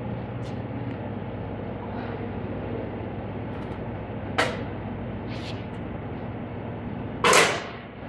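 Lindberg split-hinge tube furnace being opened: a sharp click from its front latch about halfway through, then a louder clunk near the end as the hinged top half swings up onto its rest, over a steady background hum.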